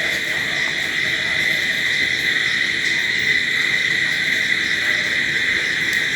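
Dense, steady chorus of crickets chirping at night, a continuous high-pitched trill with no pauses.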